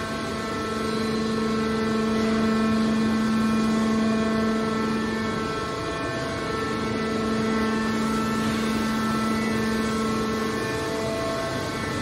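Hydraulic power unit of a scrap metal baler running steadily: a constant machine hum with a strong low tone and a row of higher overtones over a hiss.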